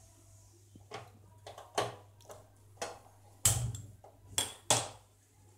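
A gas stove burner being switched on and lit: a series of about six sharp clicks and knocks from the knob and burner, the loudest about three and a half seconds in.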